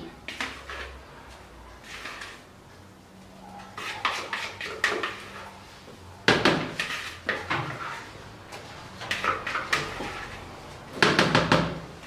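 Plastic bowl knocked and scraped as beaten egg whites are emptied out of it into the stand mixer's bowl of cake batter, with the mixer switched off. There are a few short clusters of knocks, the loudest about halfway through and near the end.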